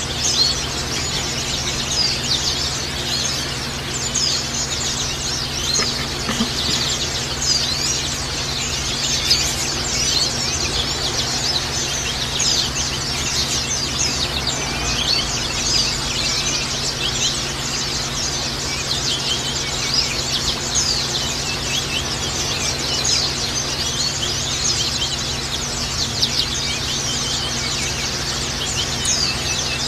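White-eyes (pleci) chirping and twittering in a dense, continuous chatter of many quick high notes, the kind of lure song played to set captive white-eyes singing. A steady low hum runs underneath.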